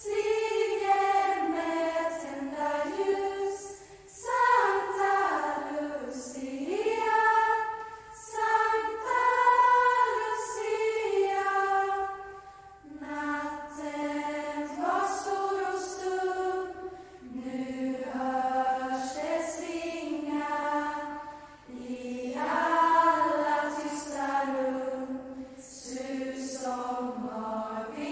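Lucia choir of girls singing a Lucia song unaccompanied in high voices, in phrases of a few seconds with short breaths between.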